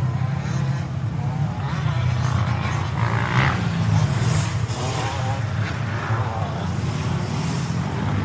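Motorcycle engine running steadily at a constant pitch, with road noise swelling and fading above it.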